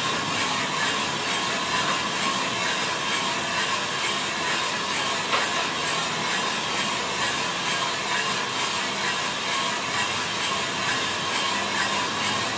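Small drum coffee roaster running mid-roast, with steady noise from the turning drum and the beans tumbling inside it. A single sharp click comes about five seconds in.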